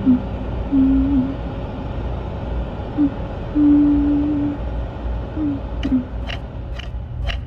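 Film sound-design ambience: a low rumble with short low tones that come and go, one held about a second. From about six seconds in, a run of sharp clicks comes about two a second.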